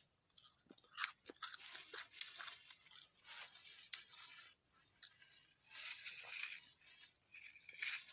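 Knife scoring the flesh of a mango half held in the hand: a run of short, crisp cutting and scraping strokes, with a sharp click about four seconds in.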